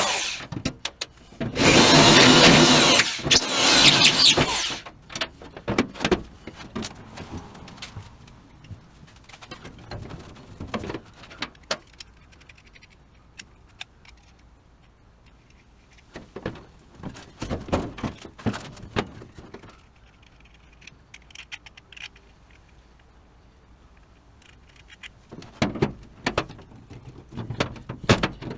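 A power drill runs for about three seconds near the start, then scattered clicks and knocks of tools and parts being handled.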